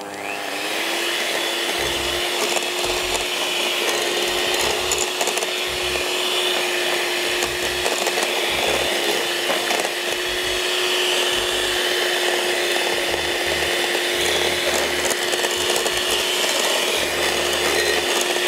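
Electric mixer starting up and running steadily as it beats eggs into creamed butter and sugar. Its motor whine rises briefly at the start, then holds one steady pitch.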